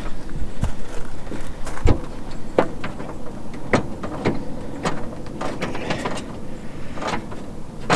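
Irregular clicks and knocks of hands working at a car door as the wiring connector for a power door lock is plugged in.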